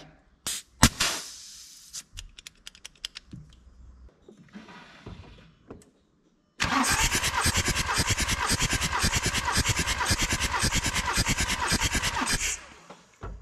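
Volkswagen Transporter T5's 2.5 TDI five-cylinder diesel turned over on the starter motor for about six seconds, a fast even pulsing that stops suddenly, during a compression test with a gauge in one cylinder. Before it come a few clicks and knocks of tools.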